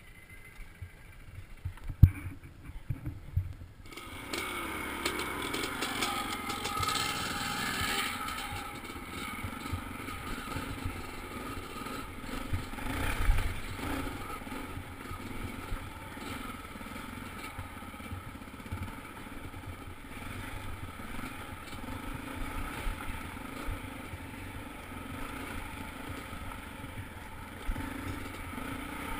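Dirt bike engine running as the bike is ridden over slickrock, heard from the rider's own bike. A few knocks in the first seconds, then the engine gets louder about four seconds in and runs steadily under load, with a bump around the middle.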